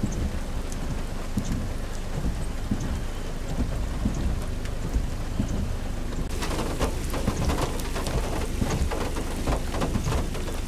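Heavy rain falling on standing floodwater, over a steady low rumble. About six seconds in, the rain becomes a sharper, closer patter of many individual drops.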